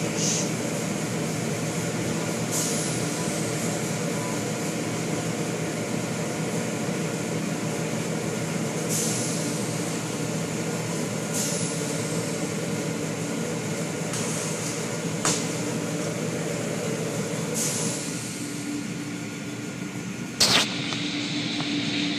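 Automatic car wash machinery running, heard from inside the car: a steady hum and drone with cloth strips and water spray swishing across the car every few seconds. A sharp knock sounds near the end.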